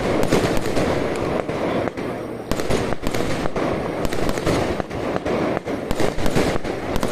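Jiware (ground-crack) fireworks going off: a dense, continuous crackle of many rapid sharp pops and bangs over a steady rushing noise.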